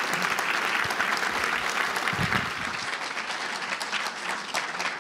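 Audience applauding: many hands clapping in a dense, even patter that eases slightly over the last two seconds.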